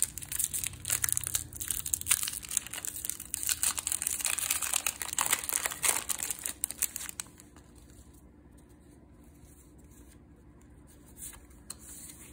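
Foil wrapper of a Magic: The Gathering booster pack crinkling and tearing as it is ripped open by hand, a dense crackle that stops about seven seconds in.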